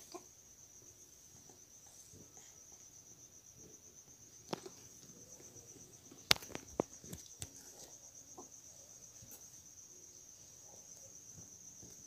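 Faint steady high-pitched insect trilling, with a handful of sharp clicks about four and a half to seven and a half seconds in.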